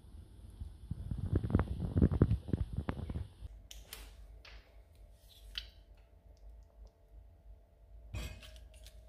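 Kitchen handling sounds: a loud run of low knocks and rustling for the first three seconds or so, then the crinkle and light clicks of a plastic tomato puree sachet being squeezed into a slow cooker over a faint steady hum, with a sharper tap about eight seconds in.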